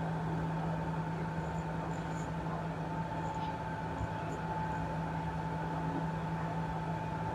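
A steady machine hum with a low tone and a fainter, higher whine over a constant rushing noise.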